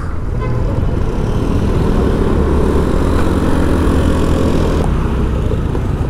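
Vehicle engine running steadily as the vehicle moves off and travels, with road noise.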